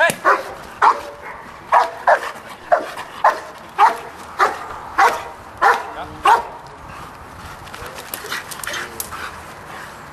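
Belgian Malinois barking in a steady series, about two barks a second, stopping a little past six seconds in.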